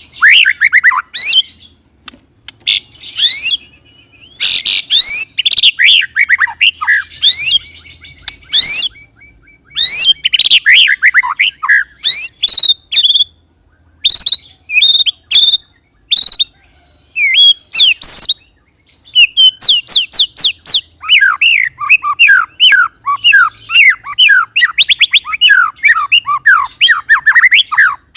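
White-rumped shama singing a fast rolling song in loud bursts of rapid sweeping whistles and chirps, with short pauses between phrases; from about two-thirds of the way through it runs into a long, quick series of descending notes.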